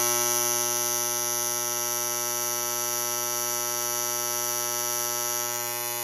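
Wheelock 31T AC horn sounding on continuous for the help alarm, a loud, steady tone with no pulsing. It cuts off at the very end.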